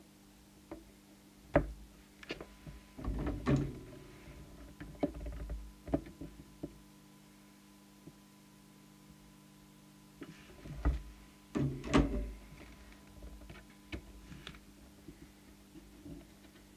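Handling noise from work on an open CB radio: irregular clicks and knocks of a hand, tool and probe against the set's chassis and circuit board, in two busier clusters, over a steady low hum.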